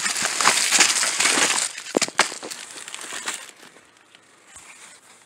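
Hands rummaging through a box of plastic-bagged items and small cardboard product boxes: dense crinkling of plastic packaging for the first second and a half, two sharp knocks about two seconds in, then softer rustling that dies down.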